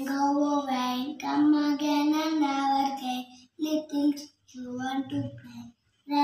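A young child singing a nursery rhyme in long, drawn-out notes, pausing briefly a few times in the second half.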